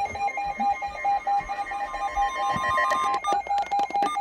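Emergency alert tones: a rapidly pulsing alarm tone over a steady higher tone. The steady tone cuts off about three seconds in, and a few sharp clicks follow near the end.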